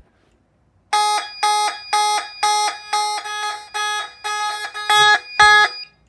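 Federal Signal Vibratone fire alarm horn sounding after a manual pull station has been pulled. It gives a loud, buzzy, pulsing tone, on and off about twice a second, starting about a second in and stopping just before the end. A couple of low thumps come near the end.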